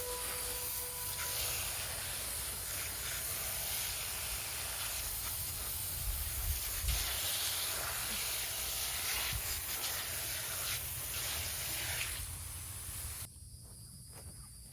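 A steady hissing noise with a few soft low knocks, cutting off suddenly near the end. The last notes of music fade out in the first second.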